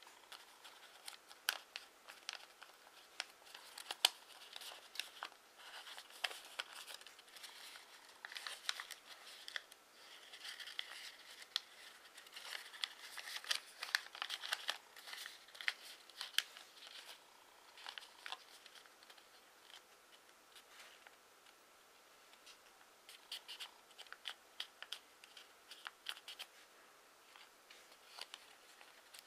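A 15 cm sheet of origami paper rustling and crinkling as it is folded and creased by hand, in a run of small crackles and ticks. The handling is busiest in the first half, eases off for a few seconds past the middle, then picks up again.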